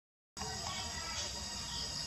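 The sound cuts out completely for a moment at the start, then a steady outdoor background returns: a high insect buzz with a few short bird chirps.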